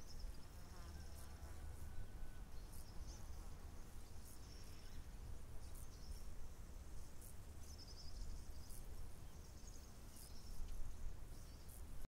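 Rural outdoor ambience: a low, steady rumble with faint high chirps and ticks coming and going.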